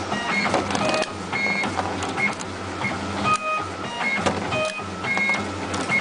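Computerized wire stripping machine running through its automatic cycle: motors whirring and whining as they feed and strip the wire, with sharp clicks as the blades cut. The cycle repeats about once a second.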